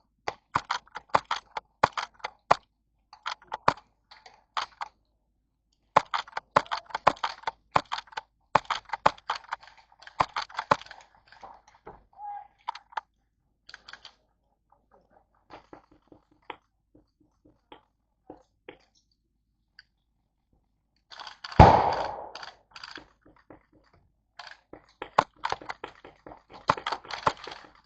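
Airsoft guns firing: strings of sharp, clicky shots in bursts with sparse single shots between. There is one louder thump about three-quarters of the way through.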